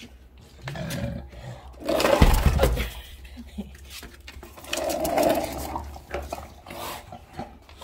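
English bulldog grunting while it chews on a skateboard deck, in rough bursts, loudest about two seconds in and again around five seconds in.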